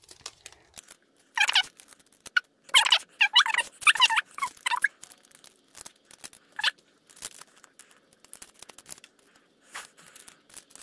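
Foil Pokémon booster pack wrappers crinkling and being torn open, in short bursts with a few squeaky sounds.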